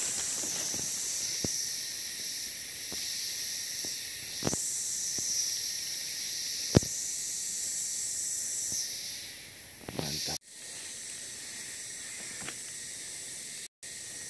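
Steady, high-pitched chorus of forest insects, with a few sharp clicks or snaps, the loudest about seven seconds in. The sound cuts out briefly twice near the end.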